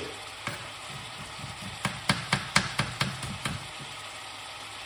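Sharp knocks from kitchen work: a single knock near the start, then a quick run of about eight knocks in under two seconds, over a steady low hum.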